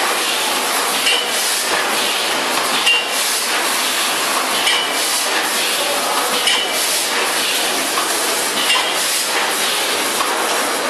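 Vertical form-fill-seal granule packaging machine with a multihead weigher running: a steady mechanical clatter with a short clink that repeats about every two seconds, once per bagging cycle.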